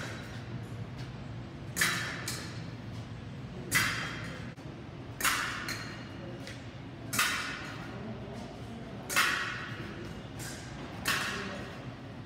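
Steel épée blades striking each other six times, about every two seconds, each sharp metallic hit ringing briefly before it dies away.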